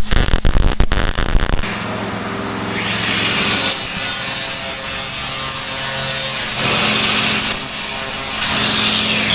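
Power tools working on a steel loader bucket's bolts: about a second and a half of rapid hammering, then a steady abrasive rasping, like grinding on steel.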